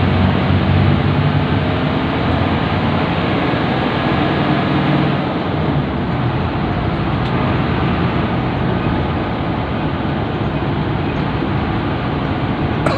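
Steady engine drone and road noise of a moving intercity bus, heard from inside the cabin; the engine's low hum is strongest for the first five seconds or so.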